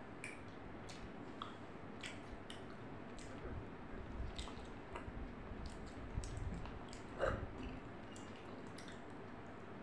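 A person eating with her fingers, chewing softly close to a lapel microphone, with scattered small clicks and one louder short sound about seven seconds in.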